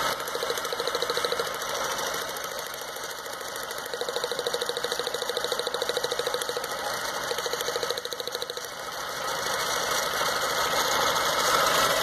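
Running 2.0-litre four-cylinder engine of a 2006 Stratus, its cylinder 3 plug wire pulled at the boot so the spark snaps across in rapid, even ticks. The ticking comes in two stretches, briefly about half a second in, then for about four seconds from the middle on. The engine runs on with little change with the wire off, the sign of cylinder 3 being the misfiring one.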